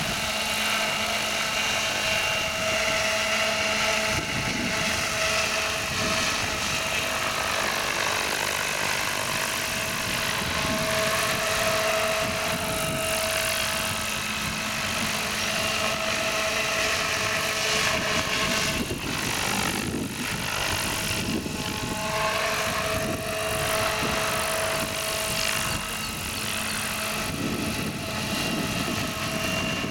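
Radio-controlled model helicopter flying low overhead: the steady drone of its motor and spinning rotor blades. The pitch wavers for a few seconds past the middle as it manoeuvres.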